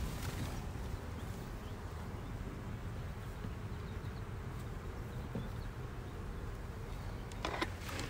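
Honeybees buzzing steadily around a hive raised on a hive lift. A brief clatter comes near the end.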